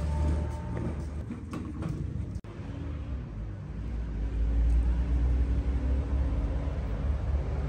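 A steady low rumble that drops out for an instant about two and a half seconds in, then returns louder.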